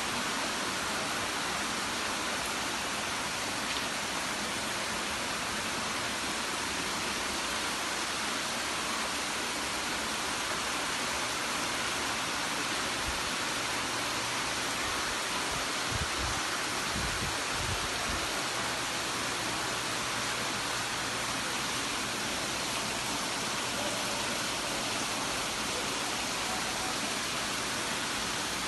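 Steady rush of fast-flowing floodwater from the overflowing Itapicuru river, with a few brief low thumps about halfway through.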